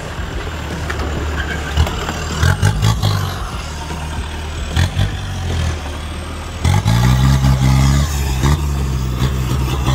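Lifted Mitsubishi Pajero on large mud tyres working through dirt ruts, its engine revved in short bursts and then given a longer, louder rising rev about two-thirds of the way through.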